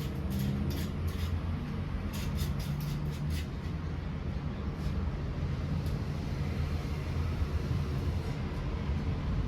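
Steady low mechanical rumble, with a quick run of light clicks in the first few seconds.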